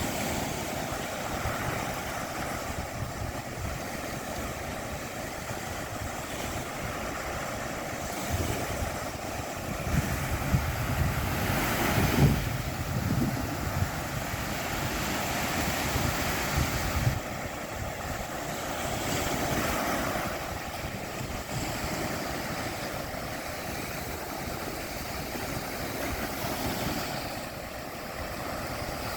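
Black Sea surf washing onto the beach, the waves swelling and falling back, with wind buffeting the microphone. The wash and rumble are loudest about ten to thirteen seconds in.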